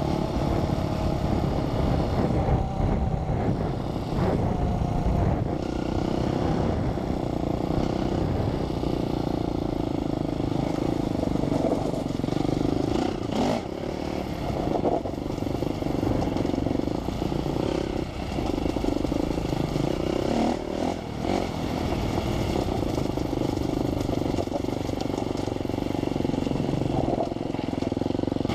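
Enduro dirt bike engine running on the move, its note wavering with the throttle, with occasional knocks from the rough track.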